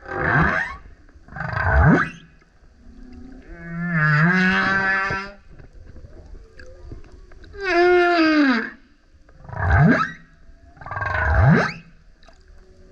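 Male humpback whale singing: a series of about six song units. Short, steeply sweeping cries alternate with two longer harmonic moans, the second of which slides down in pitch.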